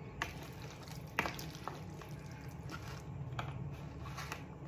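A few light clicks and drips, the sharpest about a second in, over a steady low hum.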